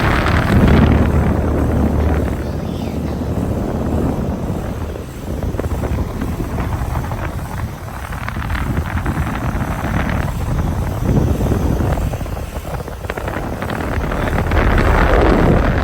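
A 2016 Keeprite central air conditioner's outdoor condensing unit running: a steady whoosh of the Genteq ECM condenser fan over the hum of the compressor.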